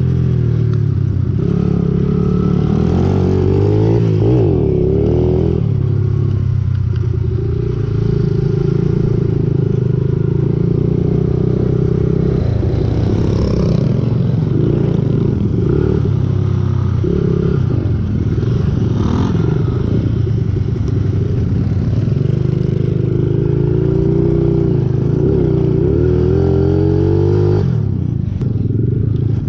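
Pit bike engine running close up on the rider's own bike, revving up and down as it rides a dirt track, with the pitch rising and falling several times.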